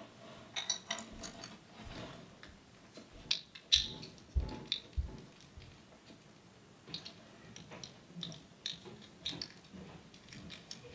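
Irregular small clicks, taps and rattles of plastic parts and wiring being handled and pushed into place, with a couple of dull low thumps about four and five seconds in.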